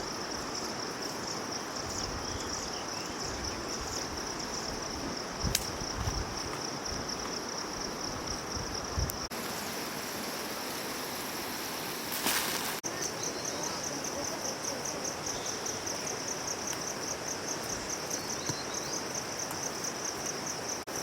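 A steady high-pitched insect trill, pulsing rapidly, over an even background hiss. It drops out briefly about nine seconds in, and there are a few soft thumps and a short rush of noise about twelve seconds in.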